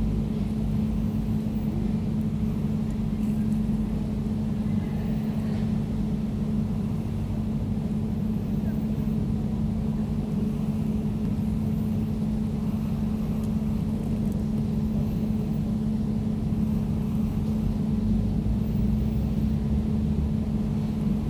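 Air conditioner running steadily: an even whooshing noise over a low rumble and a constant humming tone.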